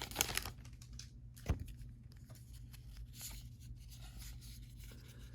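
Faint rustling and light clicks of baseball cards being handled and flipped through, with one sharper tap about one and a half seconds in.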